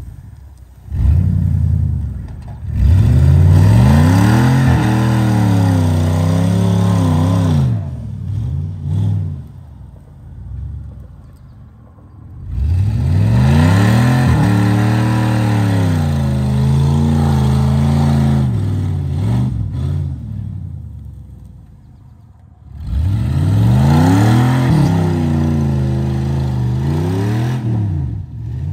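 Dodge 1500 pickup's engine revving hard in three long surges, each climbing, wavering and dropping back, with quieter lulls between, as the truck strains to drag a car on a tow rope.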